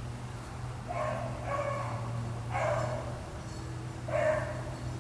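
A single beagle baying on a rabbit's trail, four drawn-out bays spaced about a second apart, the last two loudest, over a steady low hum.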